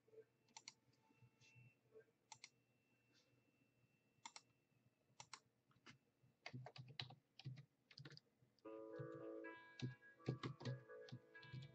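Faint, scattered light clicks that grow denser about six seconds in, with faint music coming in about two thirds of the way through.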